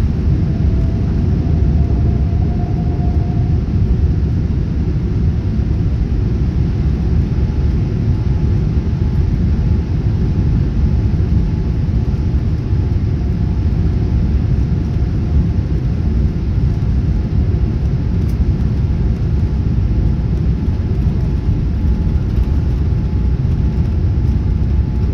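Boeing 787-8 cabin noise on the takeoff roll: the engines at high thrust and the wheels on the runway make a loud, steady rumble, with a faint whine rising slightly in pitch a second or two in.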